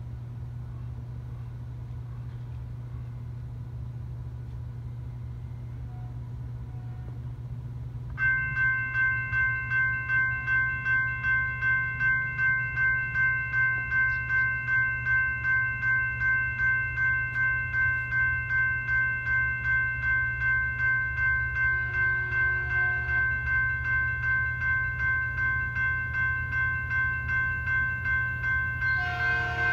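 Railroad grade-crossing warning bell starts ringing suddenly about 8 seconds in and keeps ringing about twice a second, a bell-like tone signalling an approaching train. Near the end a faint train horn joins in.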